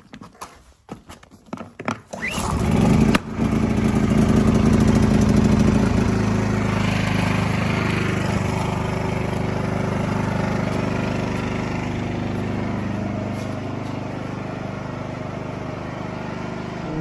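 An engine starts about two seconds in with a short rising whine, then runs at a steady speed, easing off slightly towards the end.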